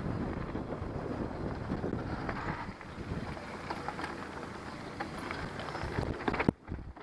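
Mountain bike rolling fast down a dirt trail: tyre noise and rapid rattling and knocking of the bike over bumps, with wind on the microphone. The noise drops off sharply about six and a half seconds in, leaving a few separate knocks.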